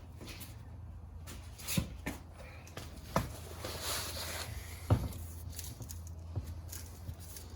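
Handling sounds while cleaning around a car's wheel hub and knuckle: three sharp knocks roughly a second and a half apart, with a stretch of rubbing or wiping between them, over a steady low hum.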